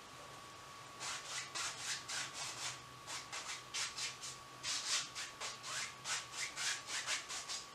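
A flat bristle paintbrush scrubbing back and forth across a canvas wet with oil paint, in quick short strokes about three a second, starting about a second in.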